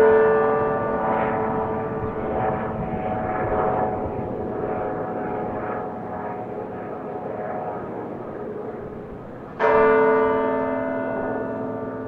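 The large tower bell of Halliburton Tower tolling slowly: one stroke rings and slowly dies away, and the next stroke comes near the end, about ten seconds after the first. This is a slow memorial toll.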